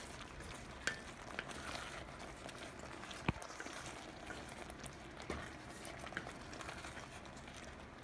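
A wooden spoon stirring a thick tomato sauce with onions and peppers in a metal pot, with a few light knocks of the spoon against the pot, the sharpest about three seconds in, over the steady hiss of the sauce cooking.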